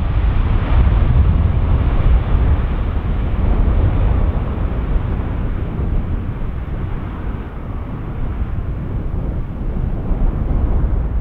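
Airbus A330-200 airliner's jet engines at takeoff power, a low rumble that slowly fades as the aircraft climbs away.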